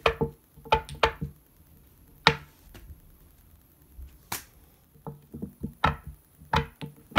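Kururin flip toys knocking on a hard table top as they are flipped and land upright: a quick run of sharp, ringing clacks in the first second, a few single clacks over the next seconds, then another run of clacks in the last two seconds as two toys are worked at once.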